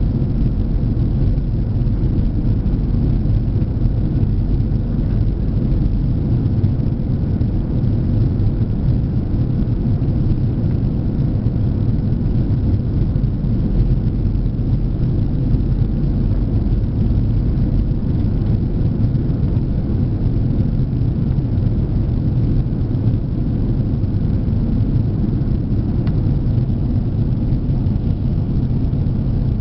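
Steady cabin noise of an Airbus A340-300 in flight, heard at a window seat by the wing: the four CFM56-5C engines and rushing airflow make a dense, even low rumble with a faint steady hum.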